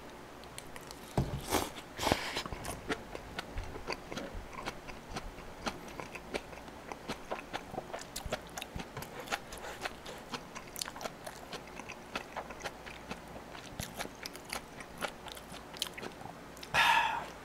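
Enoki mushrooms chewed right up against the microphone: a long run of small, sharp clicks, several a second.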